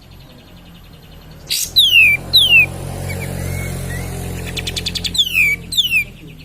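Kapas tembak songbird singing: sharp calls followed by quick downward-sliding whistles about a second and a half in, a rapid buzzy trill about five seconds in, then another falling whistle. A low hum lies underneath in the middle.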